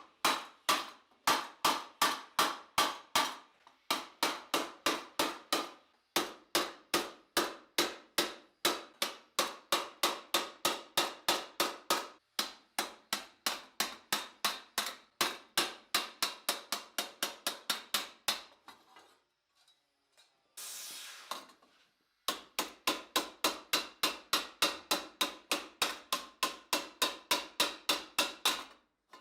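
Hammer beating steel armour plate, a steady run of ringing blows at about three to four a second, broken by short pauses. A brief hiss comes in the longer pause about twenty seconds in.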